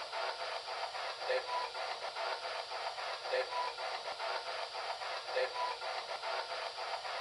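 Handheld electronic device sounding through a small speaker: a choppy hiss that pulses about six times a second. Every two seconds comes a short low beep followed by a higher one.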